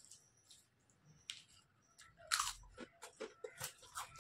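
Faint soft ticks of rice being worked by hand, then from about two seconds in a loud crunch and a quick run of crisp crackles of potato chips.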